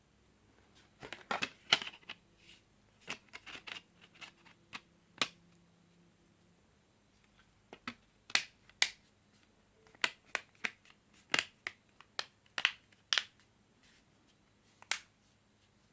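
Irregular sharp clicks and taps from a smartphone being handled, in two loose clusters with a pause between them.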